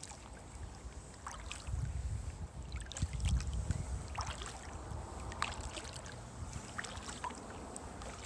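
Kayak paddle working calm water: short splashes and drips from the blades at irregular intervals, with a low rumble for a couple of seconds around the middle.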